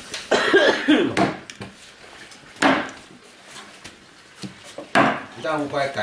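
People's voices in short bursts, with several sharp knocks, like wood or dishes being handled.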